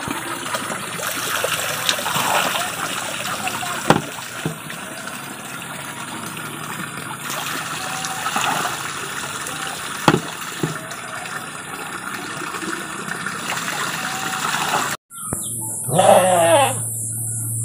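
Water pouring from a bamboo spout and splashing into a shallow stream, with a sharp knock about four seconds in and another about ten seconds in. After a sudden cut near the end, a goat bleats once.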